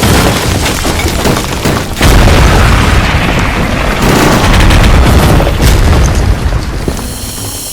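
Loud booming, rumbling sound effect with background music, starting sharply, surging heavier about two seconds in, and fading near the end.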